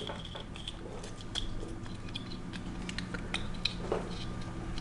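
Handling noise: scattered small clicks and rubbing as wooden-dowel dummy batteries with wires are fitted into the plastic battery compartment of an EVO gimbal, with the sharpest click right at the start.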